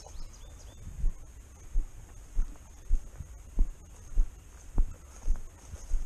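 Footsteps of a person walking briskly through grass, heard as evenly spaced low thuds, a little under two a second.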